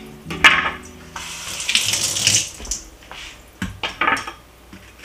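Dry rustling and scraping in short bursts as the papery skin is peeled off a white onion with a kitchen knife on a wooden cutting board.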